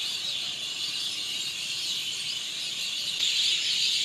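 A dense chorus of many small birds chattering and chirping together, a steady high twittering, typical of a flock gathering to roost at dusk.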